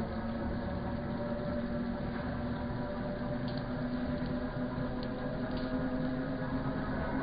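Metal lathe running, its motor and spindle giving a steady hum with a clear pitched tone that rises slightly near the end. A few faint ticks sound over it.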